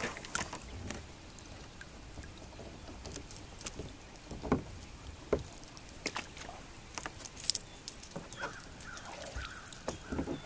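Paddling a small sit-in kayak on calm water: the paddle blades dipping and splashing, with drips and scattered light knocks and clicks, a few of them louder.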